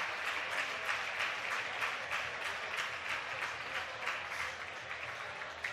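Crowd applauding: a dense, even patter of many hands clapping that eases off slightly near the end.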